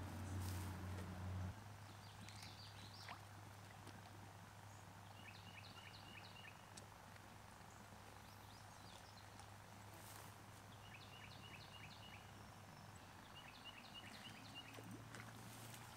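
Faint outdoor quiet in which a songbird sings three short phrases of quick repeated high notes, over a steady low hum.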